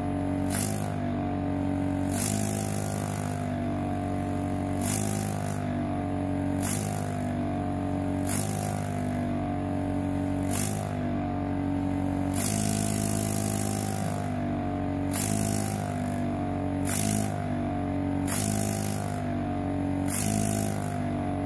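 Air pump of a Cake Deco Pen sugar-craft machine running with a steady hum. Short bursts of air hiss come every one to two seconds as air flow to the dispensing pen is switched.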